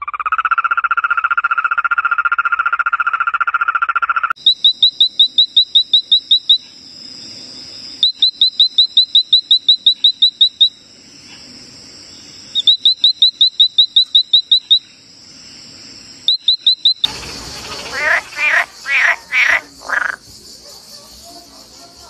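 Frogs calling, one after another: first a steady buzzing trill for about four seconds, then a small tree frog giving four bouts of quick, high clicking notes, about five a second; near the end a different frog gives about five short, lower calls over a steady high hiss.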